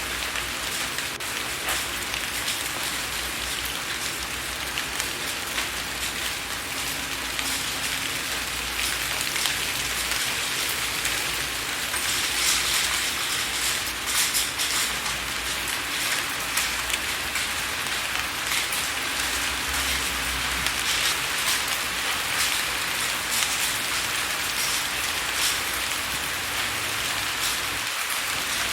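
Steady rain falling on a window pane, a continuous hiss full of small drop ticks, growing a little heavier about halfway through, with a faint low rumble underneath.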